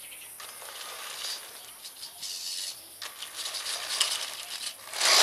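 An old Radio Shack RC car on a 7.2-volt battery driving over dirt: its small electric motor and gears whir in short, uneven bursts, with grit crackling under the tyres and a louder burst near the end.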